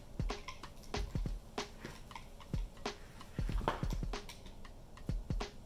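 Irregular small clicks and taps as hands close the plastic cover of a heat tape controller, set its screws in place and pick up a screwdriver.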